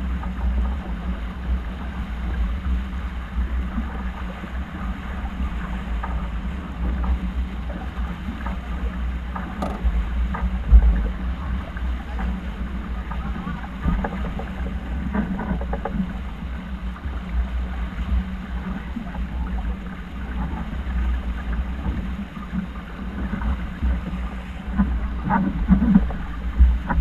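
Steady wind rumble on the microphone aboard a boat under way, over a haze of water noise and a low steady hum, with a few brief knocks.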